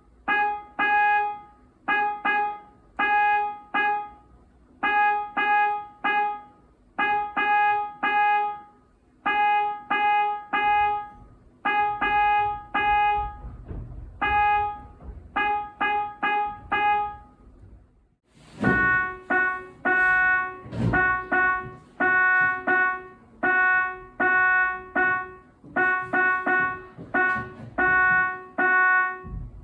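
Electronic keyboard playing the school's name in Morse code: short and long notes on one repeated pitch, grouped letter by letter with gaps between them. After a brief pause about eighteen seconds in, a denser run of notes at a slightly lower pitch begins, with a few sharp clicks among the notes.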